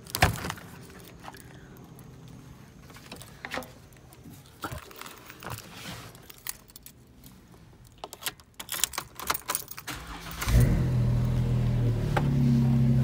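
Keys jangling with scattered clicks and knocks, then about ten seconds in a Jeep's engine starts and settles into a steady idle.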